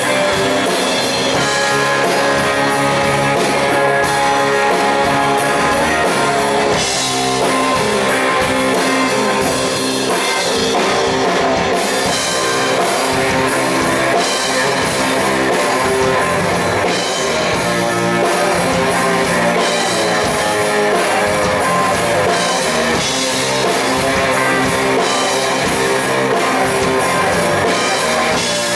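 Rock band playing live: electric guitars over a drum kit in a loud, steady instrumental passage without vocals.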